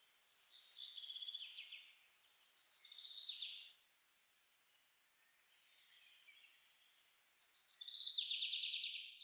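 Faint birdsong: three short trilled phrases of rapid high notes with pauses between, the last one the longest and loudest, near the end.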